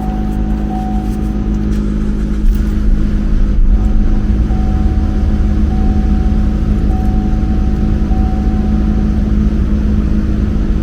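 2013 Chevrolet Equinox engine running at a steady idle, getting louder and deeper about two and a half seconds in.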